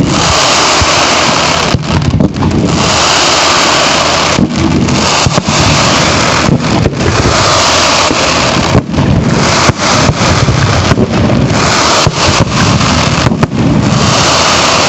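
Fireworks barrage going off without a break: a loud, unbroken noise with short dips, so dense that the separate bangs run together.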